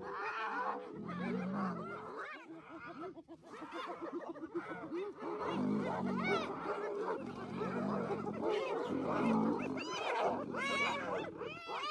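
Animals calling: many short calls that rise and fall in pitch, overlapping one another.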